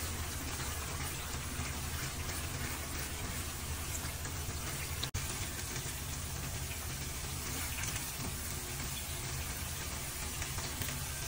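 Hot oil sizzling steadily in a wok with chilli flakes and garlic frying in it, stirred with a spoon; the sound cuts out for an instant about five seconds in.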